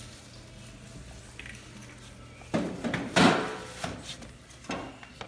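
A stainless steel griddle waste tray being handled: a few knocks and scrapes of sheet metal starting about halfway through, the loudest a little past the middle.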